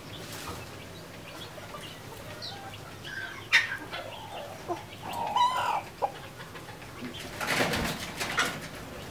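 Red junglefowl feeding in a flock: a sharp tap about a third of the way in, short clucking calls in the middle, and a flurry of wing flaps near the end.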